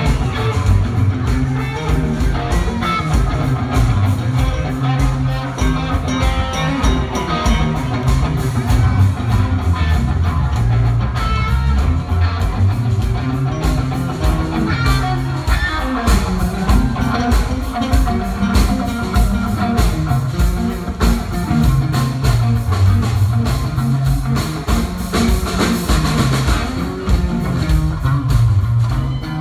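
Hard rock band playing live at full volume: electric guitar over a moving bass line and a steadily pounding drum kit.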